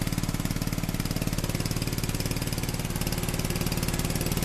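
The 11-horsepower Briggs & Stratton engine of a 1980s Sears Craftsman riding mower running steadily with an even, fast firing pulse, shortly after a cold start. It is pretty loud, inside a garage.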